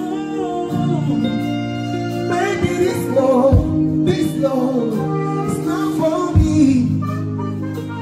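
Live band music through a PA: sustained chords with electric guitar under a male singer's voice gliding through a melody, with two deep thumps in the middle.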